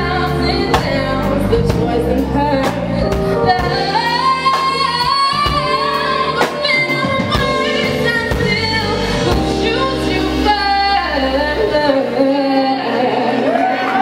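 A woman singing live with a band: her voice carries the melody over electric guitar, keyboard, bass and regular drum hits.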